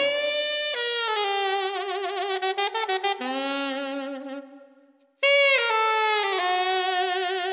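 A lone saxophone playing long held notes with a wavering vibrato and a few quick repeated notes. It fades out to silence a little past halfway, then comes back in loudly about five seconds in.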